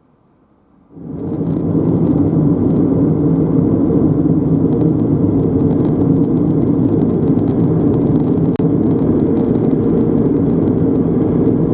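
A loud, steady mechanical rumble like a running engine, starting suddenly about a second in.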